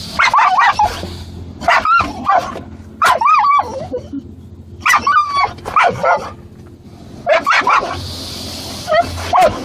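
A dog barking, yelping and whining in about six short bursts, the pitch sliding up and down, over the faint steady hiss of the car wash outside the car. The dog is anxious at being in the car wash.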